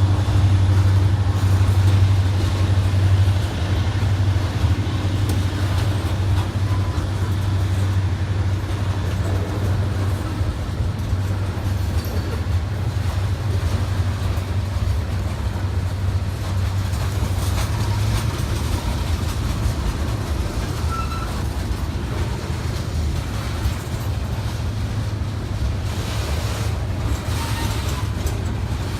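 Train rolling past with a steady low rumble, heaviest for the first few seconds.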